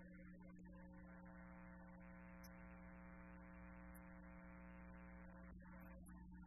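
Near silence: a steady electrical hum, with a faint held pitched tone from about a second in until a little after five seconds.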